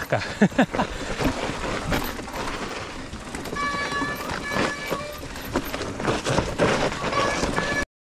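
Electric mountain bike riding over rough trail ground: rolling tyre noise and rattling clicks, with a few brief high steady tones in the middle and near the end. It cuts off suddenly near the end.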